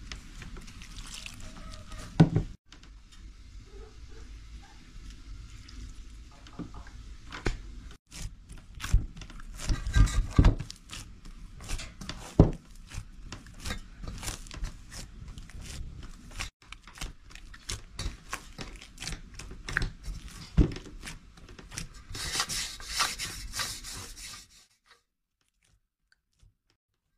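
Hands working flour and kneading dough in an enamel bowl: a dry rubbing and squishing sound with irregular knocks as the dough is pushed and turned against the bowl. It stops abruptly near the end.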